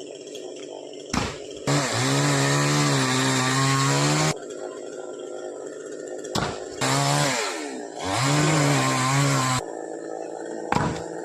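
Chainsaw cutting a coconut palm, its engine running hard in three stretches, the pitch sagging and recovering as the chain bites under load. Each stretch cuts off suddenly, with a short sharp crack near each break.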